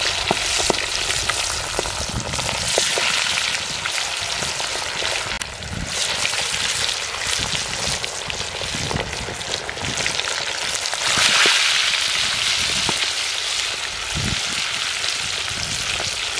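Marinated fish pieces deep-frying in hot oil: a dense, steady sizzle with scattered crackles, swelling louder for a moment about eleven seconds in.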